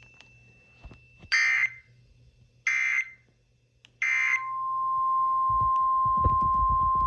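Emergency Alert System (SAME) header: three short, loud, screechy digital data bursts about a second and a half apart, followed about four seconds in by the steady NOAA Weather Radio warning alarm tone, which holds. Crackling noise runs under the tone for the last second or two.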